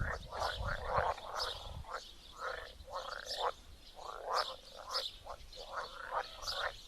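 Chorus of many pond frogs calling together, short overlapping croaks following one another without pause. A low rumble runs under it for the first two seconds.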